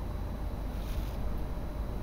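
Steady low outdoor rumble with no speech, with a brief soft hiss about a second in.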